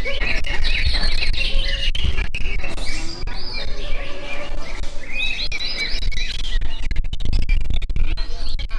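Many caged contest songbirds singing at once: a dense, continuous mix of high chirps and trills.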